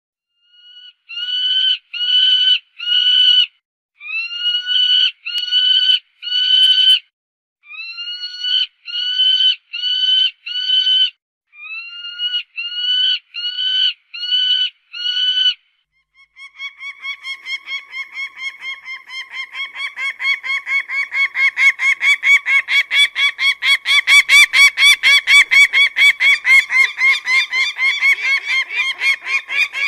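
Peregrine falcon (shaheen) calling. For about the first half come harsh, drawn-out calls in groups of three or four. Then comes a fast cacking run of short calls, about four a second, growing louder.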